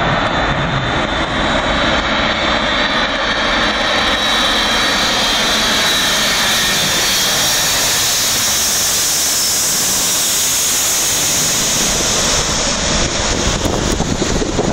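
USAF C-17A Globemaster III's four turbofan engines running loud as the jet flies low overhead on landing approach with its gear down. The jet noise grows brighter and hissier about four seconds in, stays at its peak through the middle, and eases near the end.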